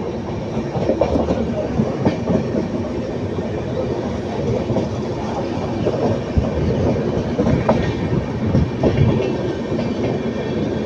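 Passenger train running, heard from aboard a coach: a steady rumble with the wheels clattering and knocking irregularly over the track.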